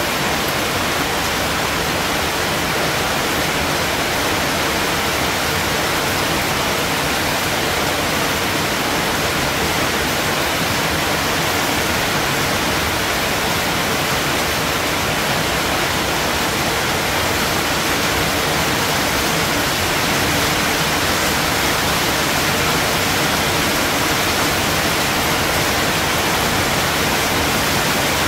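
Steady rain, an even, unbroken hiss with no separate drops or other sounds standing out.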